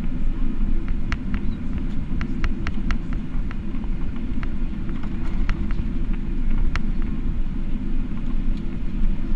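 Steady low cabin rumble of a Boeing 777-300ER taxiing, heard from inside the cabin, with scattered light ticks here and there.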